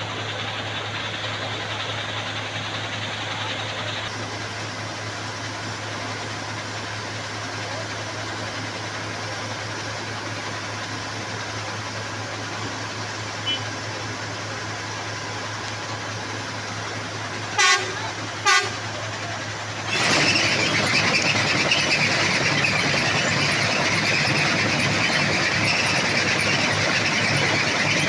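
Railway ballast cleaning machine's diesel engine running steadily, with two short horn toots about two-thirds of the way through. Shortly after, a louder, rough, steady machine noise takes over.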